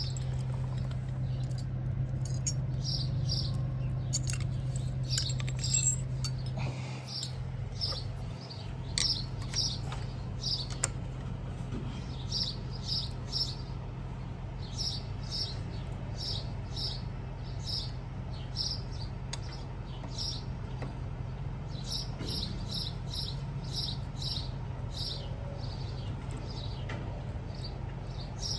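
Keys clicking and rattling in a newly installed mortise lock cylinder as they are tried, with sharp clicks mostly in the first ten seconds or so. Throughout, birds chirp high in quick runs of three or four, over a steady low hum.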